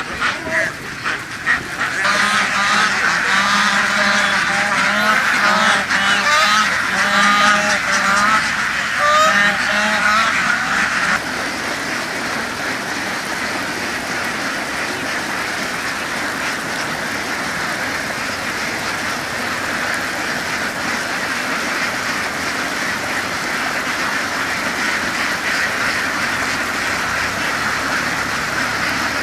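A large flock of ducks quacking, with many overlapping calls for the first ten seconds or so. About eleven seconds in the sound drops to a quieter, steady din with no distinct calls.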